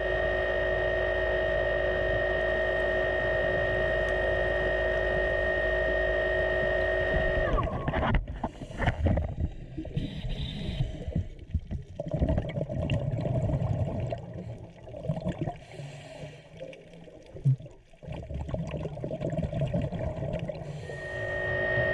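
A steady motor drone, typical of a boat engine, with several held pitches. About a third of the way in it drops out, giving way to irregular splashing and gurgling water, and the drone returns near the end.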